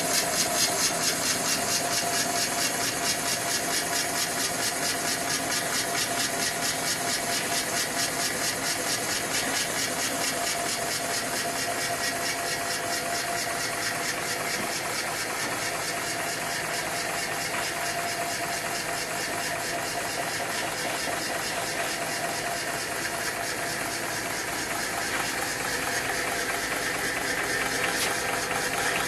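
1927 Cadillac 314 flathead V8 engine running at a steady idle, with an even, fast rhythmic pulse throughout.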